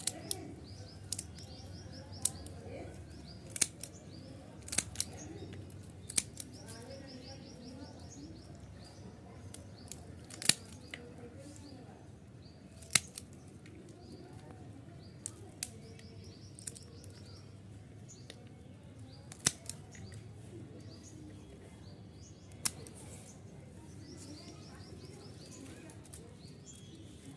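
Small birds chirping in quick high trills that come and go, with sharp clicks scattered every few seconds over steady low background noise.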